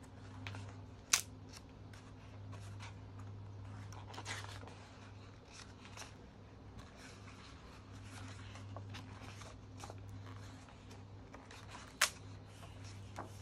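Glossy pages of a thick photo magazine being handled and turned: soft paper rustling and sliding, with two sharp page snaps, one about a second in and one near the end. A low steady hum sits underneath.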